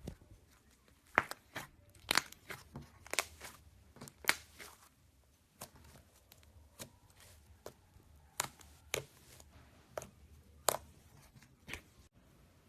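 Slime being mixed by hand: an irregular run of sharp sticky clicks and pops, thicker in the first half.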